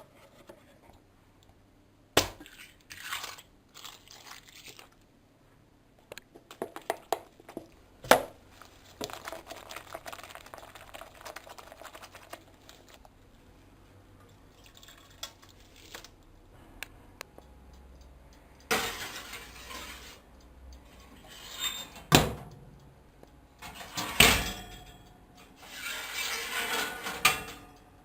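Slime being worked by hand: irregular wet, sticky squishing and squeezing, broken by a few sharp clicks and knocks.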